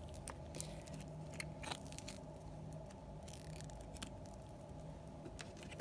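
Scattered light clicks and scrapes from a hard epoxy resin coaster being handled and turned over, over a faint steady low hum.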